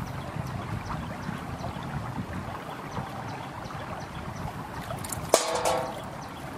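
Shallow freshwater sloshing and trickling as a hand sweeps through it over the sandy bottom. About five seconds in comes a single sharp knock with a brief ring, the loudest sound.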